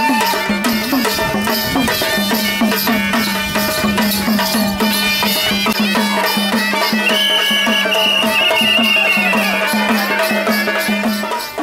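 Adivasi folk band music: madal drums beating a brisk, steady rhythm under a held, droning wind-instrument tone, with a higher wailing melody entering in the middle.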